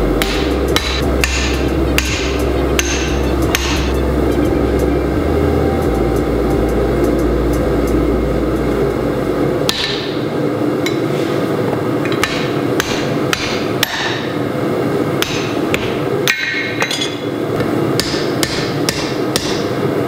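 Hand hammer striking a red-hot forged steel axe head on an anvil, a drift set in its eye, in a long series of sharp ringing blows: driving a maker's mark stamp into the axe face.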